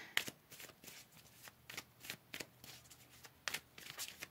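Tarot deck being shuffled by hand: a string of quick, irregular card flicks and slaps.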